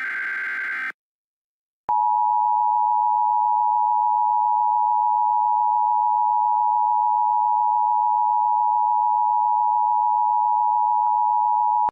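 Emergency Alert System sequence: a SAME header data burst, a raspy digital screech, ends about a second in, and after a second's pause the EAS two-tone attention signal sounds, a loud steady tone held for about ten seconds.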